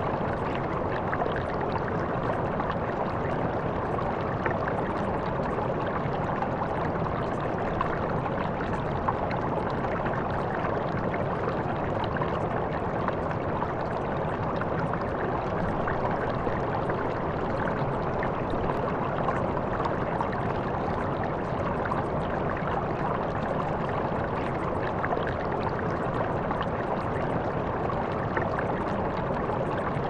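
A steady mix of running water and brown noise, with the faint crackle of a fireplace: small scattered pops over the rushing sound.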